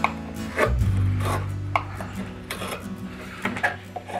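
Several short scraping strokes of a drawknife shaving wood off a kuksa blank held in a vise, over acoustic guitar background music with sustained low notes.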